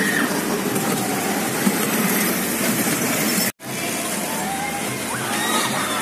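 Fairground din at a night market: a steady mix of crowd noise and ride machinery. It drops out suddenly for an instant about three and a half seconds in. When it returns, shrill rising and falling shouts of people come through near the end.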